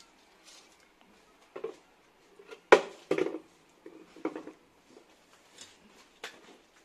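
Handling clatter of a plastic jar and a snake hook knocking against a small stool: a series of separate knocks, the loudest about two and a half seconds in.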